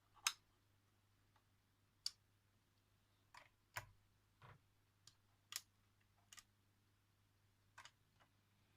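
Irregular small clicks and taps from hands working on a flip clock radio's mechanism, about ten in all, the sharpest just after the start, over a faint hum.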